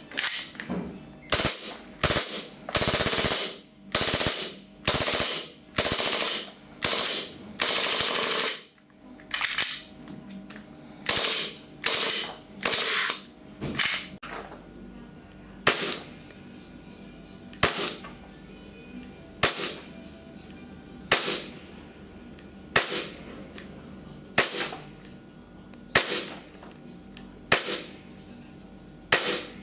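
WE Glock-style gas blowback airsoft pistol with a metal slide, firing. The shots come in quick strings and longer runs in the first half. After that come nine single shots, evenly spaced about every second and a half to two seconds.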